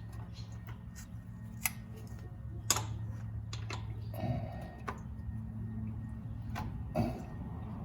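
Irregular sharp clicks and taps of hand tools working at a tight oil filter, the loudest about two and a half seconds in, over a steady low hum.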